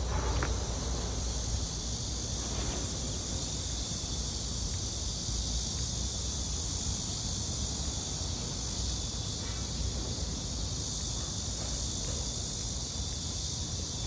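Chorus of cicadas droning in a steady, unbroken high buzz, with a low rumble underneath.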